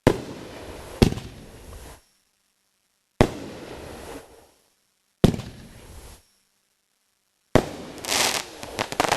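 Aerial fireworks bursting: five sharp bangs, each followed by a rumbling, crackling tail that cuts off abruptly into dead silence. Near the end comes a dense run of rapid crackling pops.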